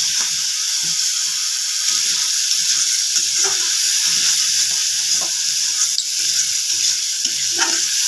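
Peas sizzling steadily in hot oil in a kadhai, with a spoon scraping and knocking against the pan now and then as they are stirred and scooped out, once fried through.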